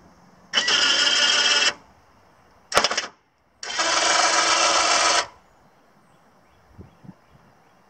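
Electric winches of a winch-driven sawmill power log dog running in two bursts, about a second and then a second and a half, as the clamp is driven along its chain, with a short sharp clunk between the runs. Two light knocks come near the end.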